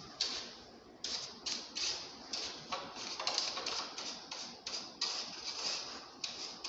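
Stiff coil brush scrubbing the aluminium fins of a split AC's indoor evaporator coil in quick, scratchy back-and-forth strokes, about three a second, dry-cleaning dust off the coil.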